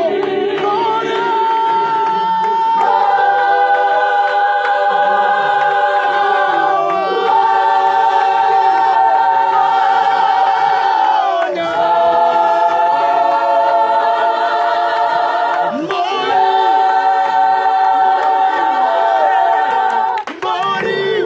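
Gospel choir singing a cappella in close harmony: long held chords in phrases that change about every four seconds.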